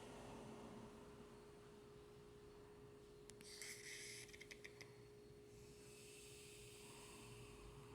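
Near silence between snores: soft breathing, with a steady faint hum underneath and a few small clicks about three and a half seconds in.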